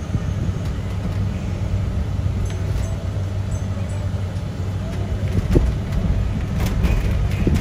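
Road and engine noise heard from inside the cabin of a moving car: a steady low rumble, with a few faint ticks in the second half.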